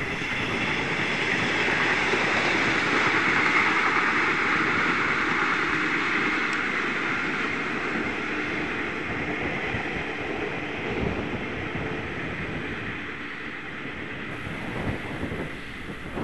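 Six-car JNR 475-series electric multiple unit running past at a distance, a steady rumble of wheels on rails. It swells over the first few seconds and then slowly fades as the train draws away.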